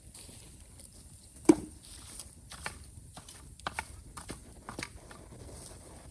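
Bamboo fire crackling, with scattered sharp pops at uneven intervals; one much louder pop comes about a second and a half in, followed by a brief low ring.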